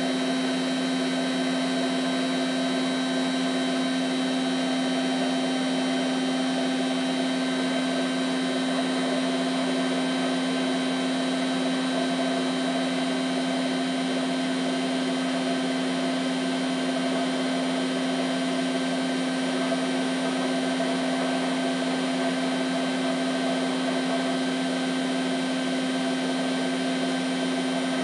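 Hotpoint Aquarius Ultima WM23W washing machine on its final spin, running at a constant high speed with a steady motor whine at one pitch.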